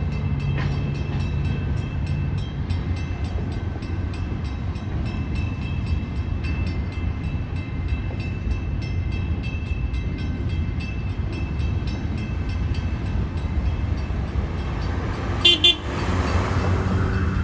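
Train rolling past with a steady rumble and a rapid, even clicking of wheels over the rails. Near the end a horn gives one brief, loud toot.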